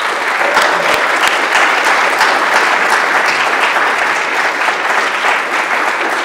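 An audience applauding steadily, many hands clapping, starting at once and keeping up.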